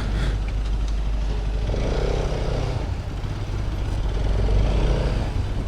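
Bajaj Pulsar RS 200 single-cylinder motorcycle engine running steadily at low speed, with road and wind noise. The bike's clutch plates are worn out.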